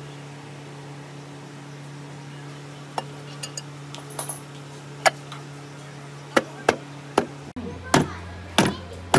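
Aluminium crankcase cover of a small four-stroke generator engine being fitted onto the sealed crankcase: light metal clicks as it is set in place, then a series of sharp knocks, roughly one every half second, as it is tapped down with a mallet. A steady low hum runs underneath.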